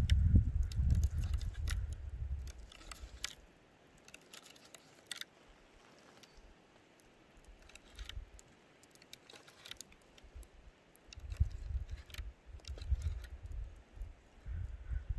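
Knife slicing raw bear meat on a wooden plank, the blade tapping and clicking against the board now and then. A low wind rumble on the microphone comes and goes, loudest at the start and again near the end.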